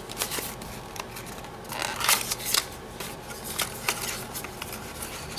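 Small cardboard nail-polish carton being handled and opened: scattered short scrapes, rustles and ticks of paperboard under the fingers, loudest about two seconds in.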